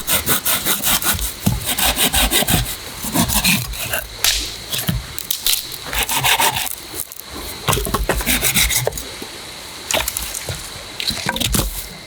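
Dry sticks and branches being snapped, broken up and rubbed together while gathering firewood: a run of irregular sharp cracks with rasping scrapes between them.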